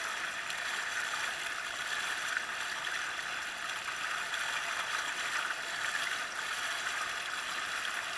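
Water rushing and splashing along the hull of a moving boat as it pushes its bow wave, a steady rushing with no engine tone standing out.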